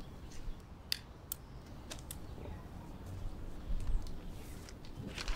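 A few light, separate clicks and soft rustles of a pen and paper being handled on a car's bonnet while a document is signed.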